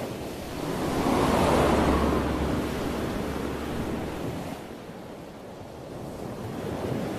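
Ocean surf with wind, swelling over the first two seconds and easing off after about four and a half seconds, with a low steady hum beneath it until then.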